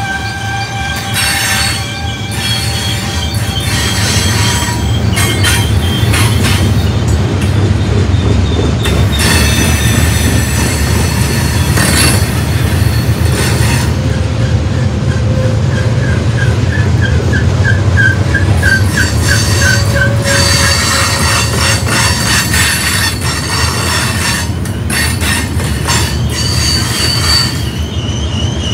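Freight train of covered hopper cars rolling past close by: a steady low rumble of wheels on rail, with high-pitched wheel squeal coming and going throughout and a warbling squeal in the middle.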